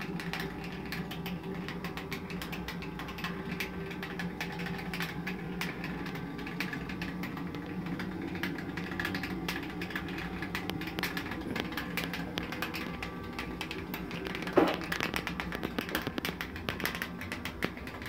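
Homemade wood pellet boiler running: a steady hum from its small forced-draft fan under irregular crackling and ticking, the water crackling and boiling at the top of the stainless heat exchanger. One louder short rising chirp about three quarters of the way through.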